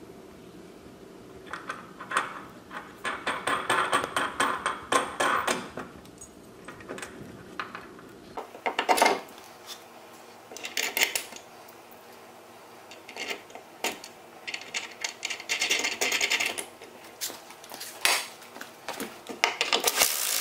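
Irwin bar clamp being squeezed tight in several bursts of rapid ratcheting clicks, with the clamp and the steel frame knocking and rubbing against the wooden boards.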